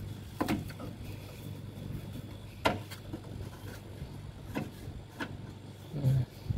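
Refrigerator compressor running with a steady low hum, with several light knocks and taps from hands handling the copper refrigerant pipes around it.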